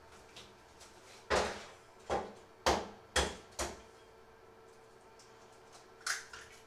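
Kitchen clatter: five sharp knocks in quick succession, starting about a second in, then one more near the end. These are things being handled and set down at the sink, such as dishes, utensils or cupboard doors.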